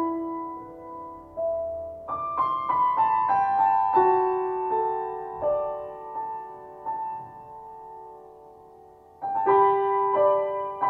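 Grand piano played solo at a slow pace: single notes, then a quick run of notes a couple of seconds in, then notes left to ring and fade before a fresh chord near the end.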